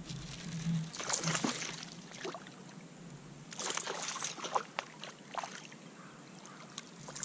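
Water splashing and sloshing as a small spotted bass thrashes at the surface beside a kayak while being reeled in, in irregular bursts about a second in and again from about three and a half seconds.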